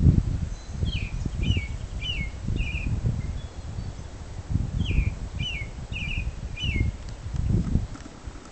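A songbird of unidentified species sings two short phrases about four seconds apart, each of four quick falling notes. An uneven low rumble runs underneath, louder than the song.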